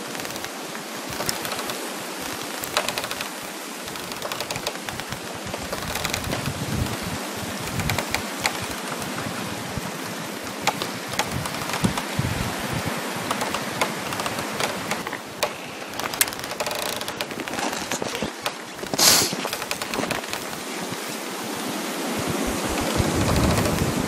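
Wind blowing steadily, with frost crackling in many small, rapid clicks. One louder, sharper crackle comes about nineteen seconds in, and a gust swells near the end.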